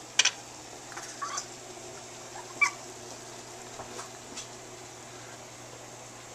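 A tabby cat making a few short, sharp sounds, the two loudest just after the start and about two and a half seconds in, with fainter ones between and after, over a steady low hum.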